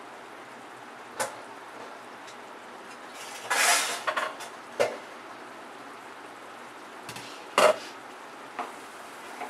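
A spatula knocking and scraping against a nonstick kadai while stirring sticky syrup-soaked boondi: a few sharp knocks, the loudest near the end, and a longer scrape around the middle, over a steady low hiss.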